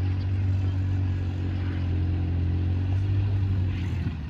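A motor vehicle's engine running close by with a steady low hum, dropping away near the end.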